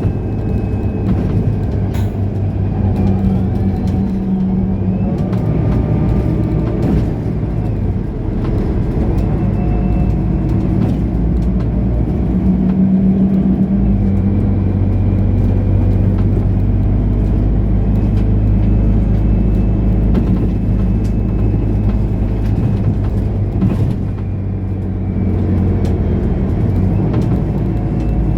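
Mercedes-Benz O530 Citaro Facelift Ü city bus driving, its diesel engine running under changing load with a steady low drone, a faint whine and light rattles. The engine pulls harder about halfway through and eases off near the end.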